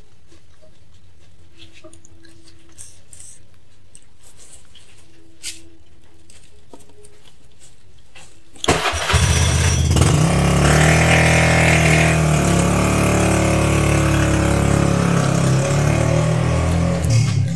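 After a quiet stretch with only faint clicks, an engine starts suddenly about nine seconds in and runs loudly and steadily close by.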